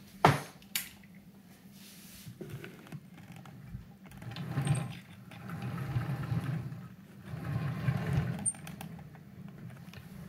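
Hornby 9F OO-gauge model steam locomotive running along the track: its small electric motor whirs and the wheels rumble on the rails, swelling in waves through the middle. Two sharp clicks right at the start.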